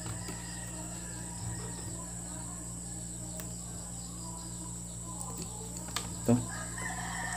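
Steady, high, even insect chirring over a low steady hum, with a couple of faint clicks.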